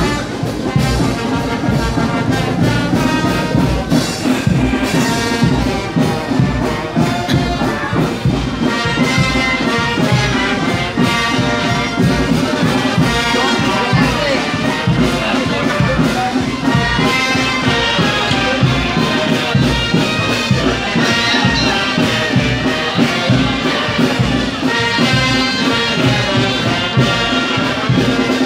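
Street brass band playing a continuous tune with a drum beat.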